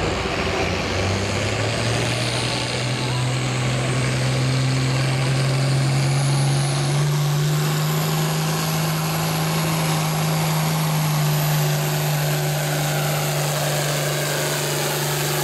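International Harvester 1066's diesel engine pulling hard under full load as the tractor drags a weight-transfer sled. Its pitch steps up twice early on, then holds steady, with a faint high whine above it.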